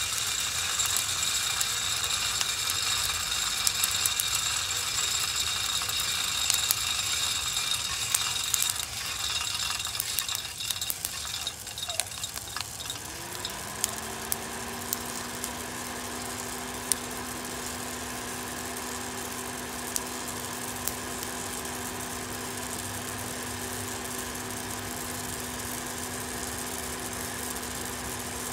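HotTop 2K+ home coffee roaster running with freshly roasted beans in its cooling tray. It starts as a clicking rattle over a high whir; about halfway through, a motor hum rises briefly in pitch and settles into a steady hum, with only the odd click after.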